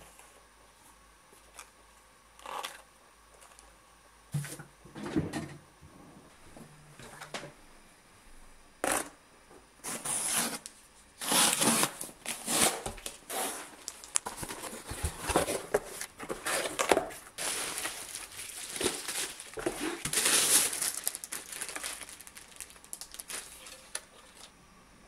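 Unboxing a parcel: cardboard flaps and packaging pulled open, followed by a dense run of crinkling and rustling from plastic bubble wrap around a wooden cutting board. A few scattered soft sounds come first.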